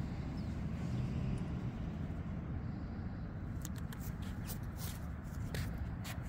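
Steady low outdoor rumble; from about three and a half seconds in, a run of short, crisp rustling clicks.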